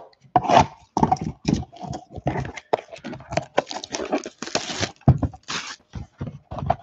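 Cellophane shrink-wrap on a trading-card hobby box crinkling and tearing as it is pulled off by hand: a continuous run of irregular crackles and rips.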